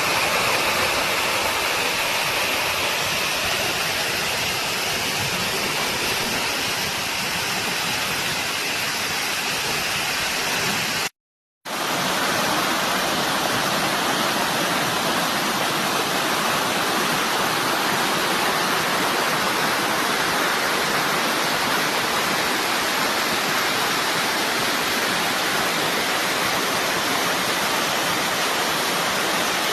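River water rushing steadily over stones, a constant even noise that breaks off for about half a second around eleven seconds in.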